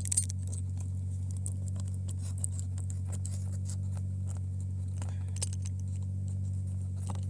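Convertible-top fabric being cut along the rear window seam: a scatter of small, sharp snips and clicks over a steady low hum.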